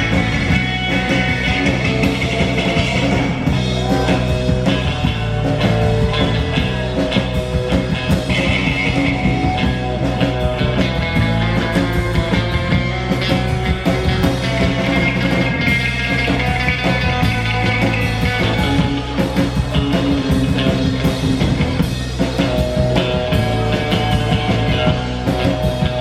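Live rock band playing an instrumental passage of the song: electric guitar over bass and steady drums.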